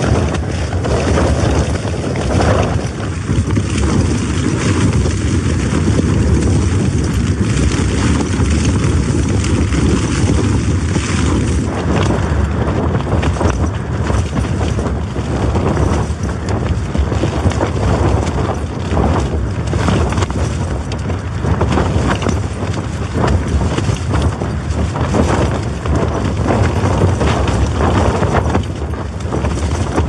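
Gale-force wind buffeting a Hilleberg tent, heard from inside: a continuous rushing roar with the fabric repeatedly flapping and snapping in the gusts.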